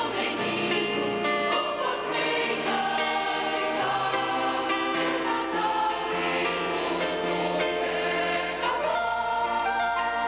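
Mixed choir of men's and women's voices singing in harmony, the parts holding and changing chords every second or so.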